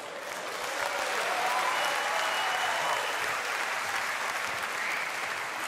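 Audience applauding, swelling over the first second or so, then cutting off abruptly near the end.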